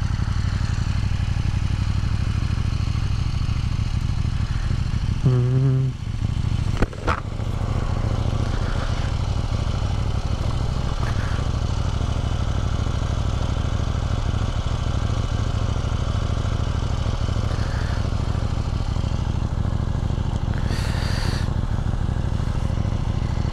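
KTM 790 Duke's LC8c parallel-twin engine running steadily at low speed. There is a sharp click about seven seconds in.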